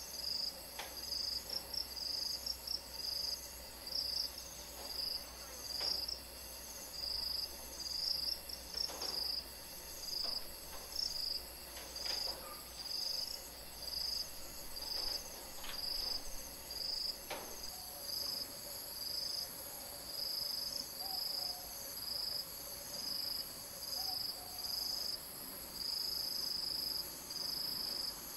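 Insects chirping in a high-pitched chorus of uneven pulses, about one a second, over a steady higher whine.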